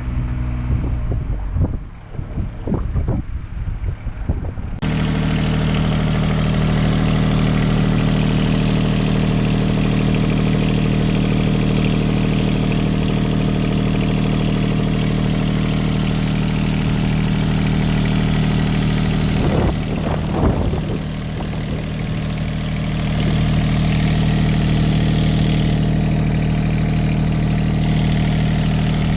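Komatsu PC26MR-3 mini-excavator's diesel engine running steadily at idle. It comes in abruptly about five seconds in, after a few seconds of wind buffeting and bumps on the microphone.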